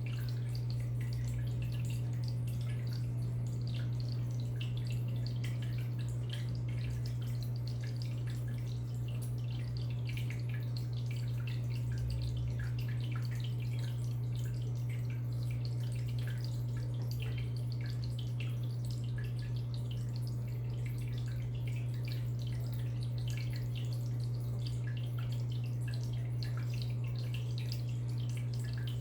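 Aquarium filter running: water trickling and dripping back into the tank in a stream of small irregular splashes, over a steady low hum from the pump.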